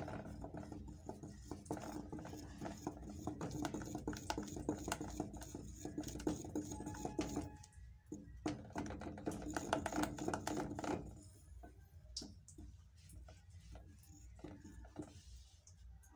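Wooden spoon stirring a liquid mixture in a stainless steel saucepan, knocking and scraping against the pan in quick, repeated strokes. The stirring stops about eleven seconds in, leaving only a few faint clicks.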